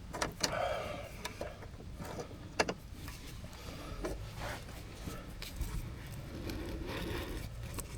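Scattered small metallic clicks and knocks of parts handled by hand, as a spring and bolt are fitted back into place on a utility vehicle's engine. A few clicks stand out, one about half a second in and one about two and a half seconds in.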